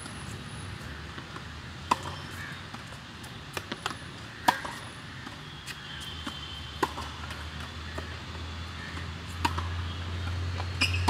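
Tennis balls struck by a racket and bouncing on a hard court: sharp single pops every second or two, the loudest about halfway through. Under them runs a low steady hum that grows louder near the end.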